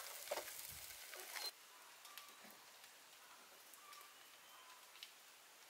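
Pig jaw sizzling on a wire grill rack over charcoal, with a click as chopsticks turn the meat. The sizzling cuts off about a second and a half in, and it goes quiet after that.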